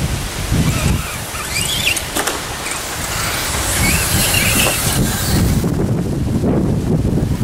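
Wind rumbling on the microphone, with short high whines from a small electric RC crawler truck's motor and gears as it crawls past.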